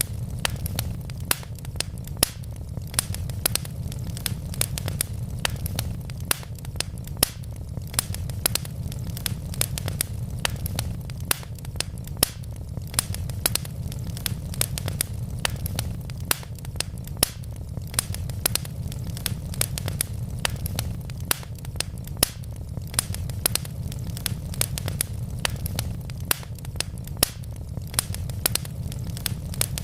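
Wood logs burning in a fireplace: sharp irregular crackles and pops, several a second, over a steady low rumble of the flames.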